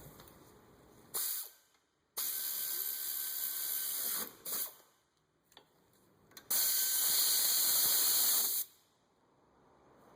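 Air ratchet running in four bursts, two brief and two about two seconds long, with a steady hiss of exhaust air: tightening the brake caliper bolts.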